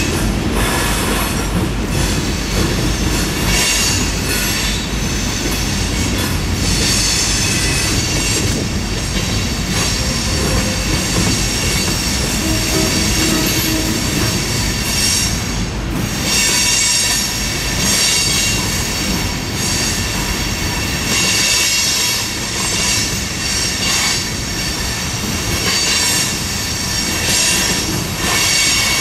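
Freight train cars rolling by, a steady rumble of steel wheels on rail with high-pitched wheel squeal coming and going throughout.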